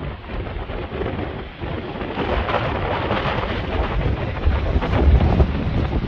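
Gale-force wind buffeting the microphone in gusts with a low rumble, over the hiss of choppy lake waves. The gusts build after about two seconds.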